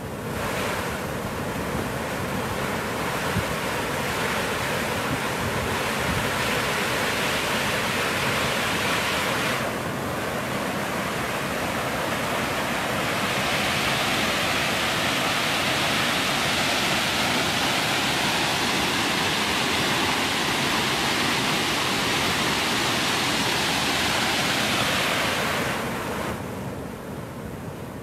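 Shakeh waterfall: several streams of water pouring down a high cliff into a rocky pool, a steady loud rushing that eases off near the end.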